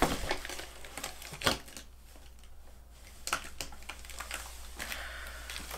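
Cardboard shipping box being opened by hand: sharp snaps and scrapes of packing tape and cardboard flaps, several separate clicks, then a rustling near the end.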